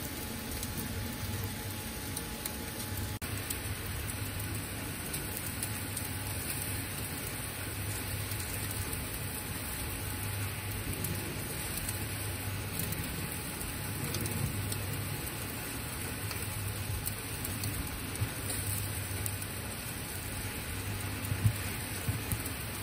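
Unagi eel fillets sizzling on a wire-mesh grill: a steady hiss of fat and juices cooking, with a low hum underneath and a couple of sharp pops near the end.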